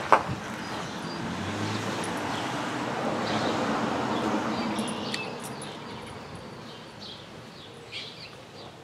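A car passes on the road, its engine and tyre noise swelling over a few seconds and then fading away, while birds chirp now and then. A short sharp click comes right at the start.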